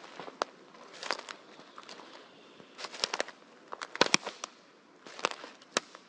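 Footsteps through dry forest-floor litter, with dry twigs and fallen branches snapping and crackling underfoot at each step, about one step a second. The loudest cluster of snaps comes about four seconds in.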